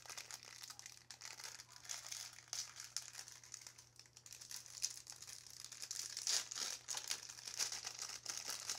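Watch packaging crinkling and crackling in irregular handling as it is worked open, over a faint steady low hum.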